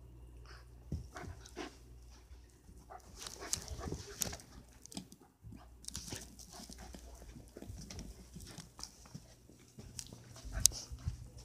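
A puppy playing and mouthing a toy on a fluffy pet bed: irregular soft clicks, snuffles and rustling, with bumps and rumble from the phone being handled close by. The sharpest click comes near the end.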